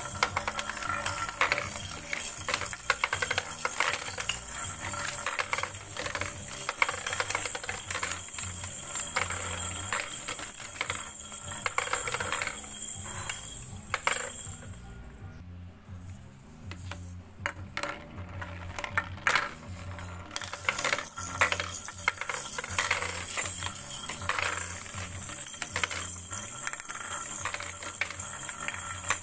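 Toy balls clattering and rattling down a plastic spiral ball tower and a wooden track, with dense clicks and knocks, over background music. A quieter stretch of a few seconds comes about halfway through.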